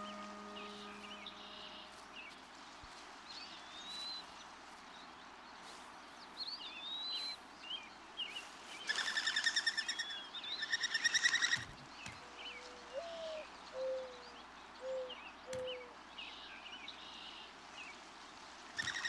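Natural bird ambience with scattered short high chirps. About nine seconds in comes a loud, buzzy, pulsing trill lasting some two and a half seconds, the loudest sound here. Then a mourning dove coos: one rising first note followed by three lower, steady notes.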